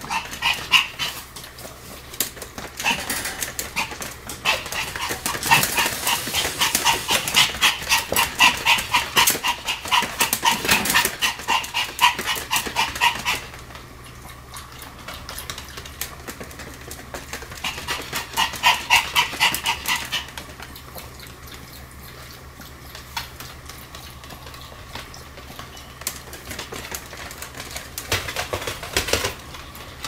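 Pomeranian barking in fast, continuous volleys of short yaps, several a second, while it spins in circles. One long run of barking lasts to about halfway through, a shorter one follows after a pause, and a brief one comes near the end.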